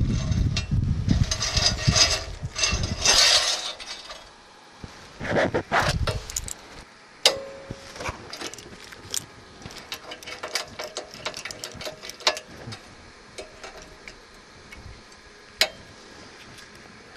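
Handling noise: rustling, then light clinks and scrapes of small metal rod pieces being set out on a steel checker plate, with a few sharp metallic taps.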